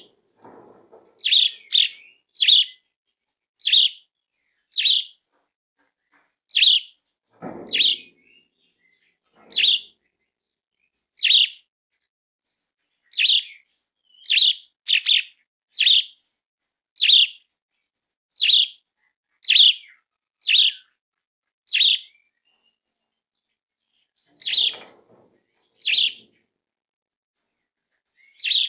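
Jalak suren (Javan pied starling) calling: a long run of short, sharp, high calls, about one a second, with a few lower, rougher notes mixed in.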